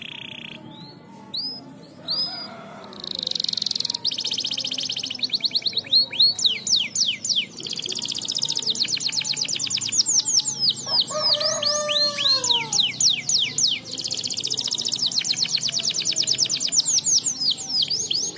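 Domestic canary singing a long, fast song of buzzing trills and rapid runs of sweeping, falling notes. A lower note rises and falls about eleven seconds in.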